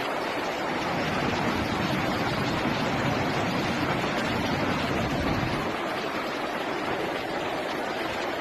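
Steady rushing noise of muddy floodwater flowing fast through a street.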